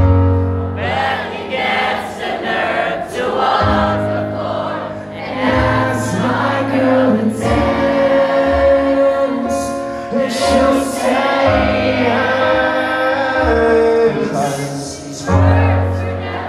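Live band playing a ballad, with the lead vocal and a large crowd singing along.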